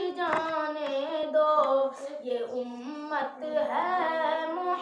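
Young boys singing an Urdu naat in a sustained, drawn-out melodic line between sung verses.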